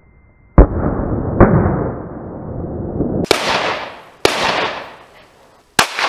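Five 9mm pistol shots from a Glock 17, the first two about a second apart and duller, then three sharper ones about a second or so apart, each followed by a long rolling echo.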